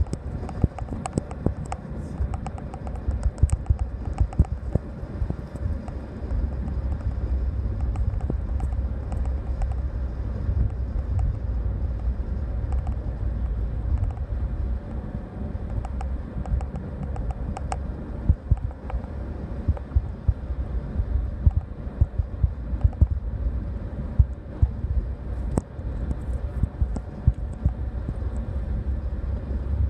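Wind buffeting the microphone: a steady low rumble with frequent short crackles and pops.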